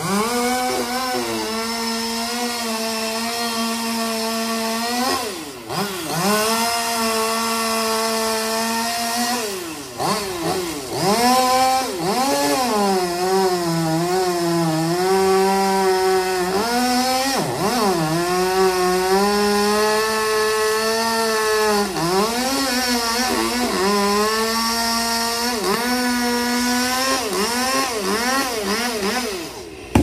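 Two-stroke chainsaw running at high revs as it cuts through a tree limb. The engine pitch sags under the load of the cut and drops briefly several times as the throttle is eased, then revs back up.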